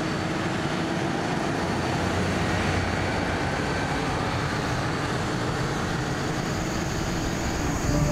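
Heavy mine truck running steadily, a constant engine drone with road and machinery noise.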